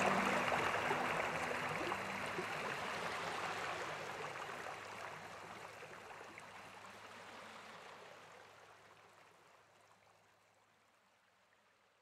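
Small sea waves washing over a sandy shore, a steady hiss of surf that fades out gradually to silence, with a faint low held tone underneath.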